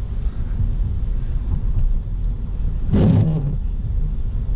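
Low, steady road and engine rumble of a car moving slowly, heard from inside the cabin. About three seconds in there is one brief, louder sound.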